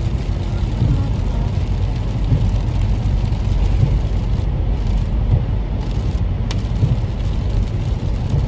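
Inside a car driving on a wet road in rain: steady low road and engine rumble with hissing tyre spray and rain. The high hiss thins for a couple of seconds about halfway through, while the car is under an overpass, and a single sharp click comes shortly after.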